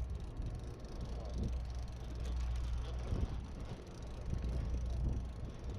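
Steady low drone of a sportfishing boat's engine running.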